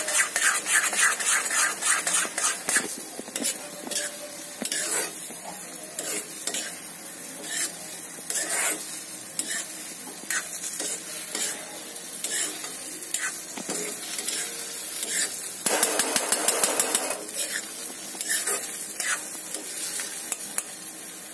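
Steel spoon stirring and scraping thick sooji halwa around a hot kadhai, the ghee in it sizzling, with repeated clicks of metal on the pan; the halwa is cooked through and ready. The stirring grows louder for a moment about sixteen seconds in.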